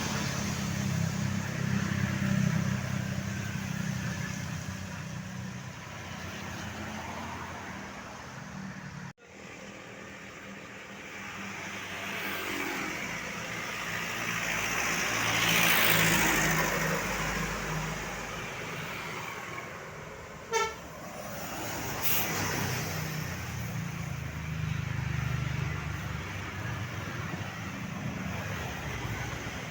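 Buses and other traffic passing on a rain-wet road: a low engine rumble, and a rising then falling hiss of tyres and engine as a vehicle goes by around the middle. About two-thirds of the way through comes one brief horn toot.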